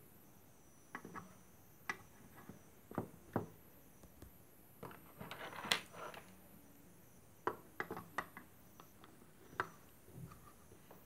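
Small desk items being handled and set down: a string of light clicks and taps, the loudest about halfway through.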